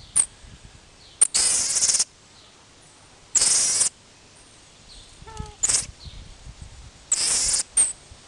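Common marmoset calling: three hissy, high-pitched calls of about half a second each, with short sharp chirps between them.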